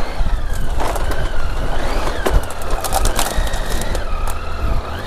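Triumph Tiger 800's three-cylinder engine heard from the rider's seat while riding a rough dirt trail. Its pitch rises and falls with the throttle, over a low rumble. Scattered sharp clicks and knocks come from the rough ground, thickest around the middle.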